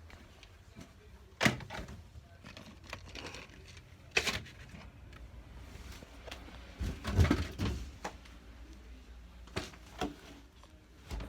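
Scattered knocks and clunks of things being handled and set down, with a cluster of several near the middle and quiet stretches between.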